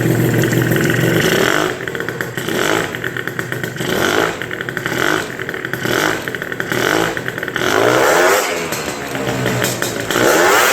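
Gilera Runner scooter's two-stroke engine with a 172 cc Malossi big-bore kit, revved hard. It is held high for a second or so, then blipped in a quick series of short throttle bursts, then swells up and down and climbs again near the end.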